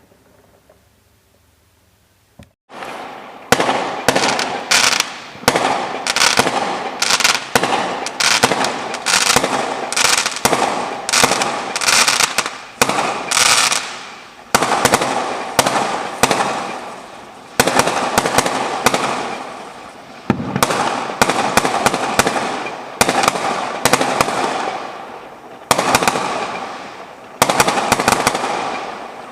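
Fireworks going off in a long rapid series, each a sharp bang followed by a fading crackle, about one a second, beginning a couple of seconds in.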